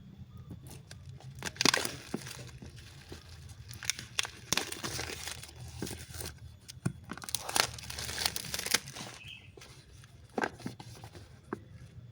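Packaging being torn open and crinkled by hand, in several bouts of rustling with sharp clicks and snaps between them.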